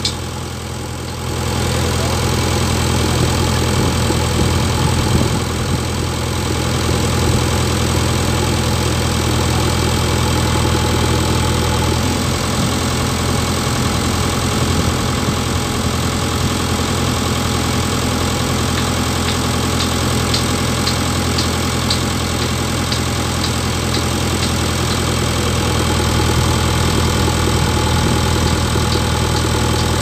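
JCB backhoe loader's diesel engine running steadily, growing louder about a second in as the arm works the bucket against the concrete pipe.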